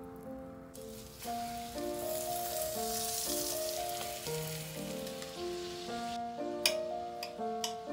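Floured chicken pieces sizzling in hot butter in a frying pan, under background music with a simple melody. Near the end the sizzle stops and a knife taps sharply on a cutting board several times, chopping garlic.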